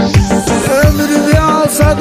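Instrumental music with a steady kick-drum beat. A wavering lead melody comes in under a second in.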